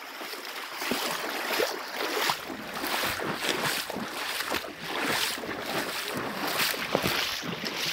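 Wading steps splashing through a shallow, rocky river, a slosh of water about every half second to second, over the steady noise of the moving water.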